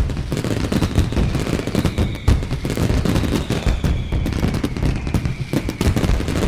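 Dense, rapid popping and crackling over a low rumble, starting suddenly and keeping up without a break, with faint high whistles slowly falling in pitch.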